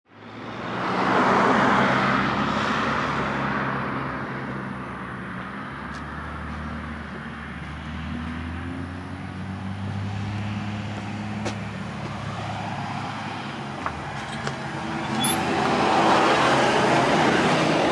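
Road traffic: vehicles passing, with one swell near the start and another near the end, and a steady low engine hum in between.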